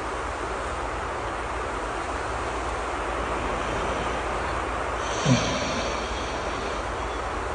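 Steady rain ambience over a low rumble, with one short snore about five seconds in: a brief falling sound followed by a breathy hiss.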